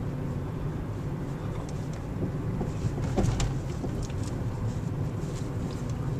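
Car cabin noise while driving slowly: a steady low rumble of engine and tyres on the road, with a few faint clicks about three seconds in.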